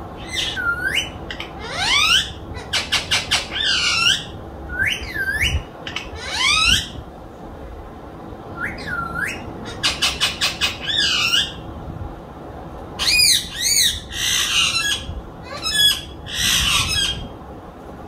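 Pet green parrot calling from its cage: about a dozen squawks and whistles that swoop down and up in pitch. Twice there is a fast rattling chatter, and harsher screechy calls come near the end.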